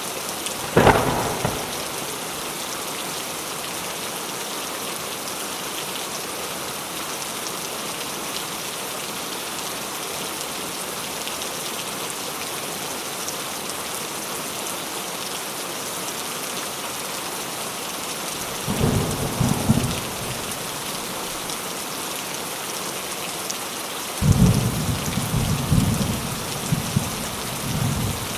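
Steady rain falling, with thunder: a sharp clap about a second in, then low rolling rumbles about two-thirds of the way through and again near the end.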